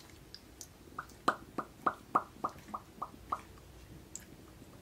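Lips smacking together in a quick run of about nine pops, roughly three a second, pressing freshly applied lipstick onto the lips.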